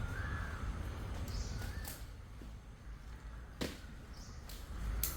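A low rumble with a few scattered knocks, one sharp click about three and a half seconds in, and a few faint short chirps.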